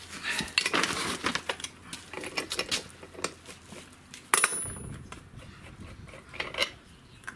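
Metal tools and car parts clinking and knocking in scattered, irregular strikes, with one sharp metallic clink about four and a half seconds in that rings briefly.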